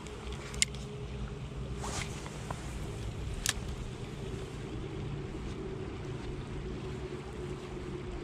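A spinning reel and rod being handled and cast: a few sharp clicks, the loudest under a second in and another about three and a half seconds in, with a brief swish around two seconds. Under them runs a steady low rumble.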